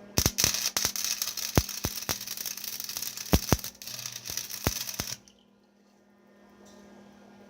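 Electric arc welder crackling and spitting while an oversized nut is welded onto a broken wheel-hub stud, with sharp pops throughout; the arc cuts off suddenly about five seconds in. A steady low hum runs underneath.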